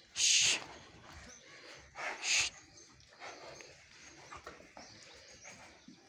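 Nagori calf snorting: two short, sharp blasts of breath about two seconds apart.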